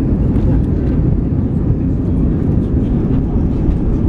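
Airliner cabin noise during landing, heard inside the cabin: a loud, steady low rumble of the engines and the aircraft rolling on the runway.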